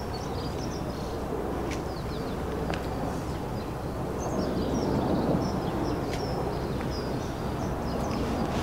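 Small birds chirping and twittering repeatedly over a steady low background rumble that swells slightly about halfway through.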